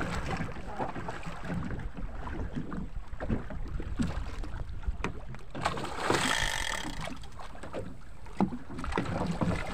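Wind rumbling on the microphone over water splashing beside a small boat as a hooked stingray thrashes at the surface, with a few short knocks. A louder burst of splashing comes about six seconds in.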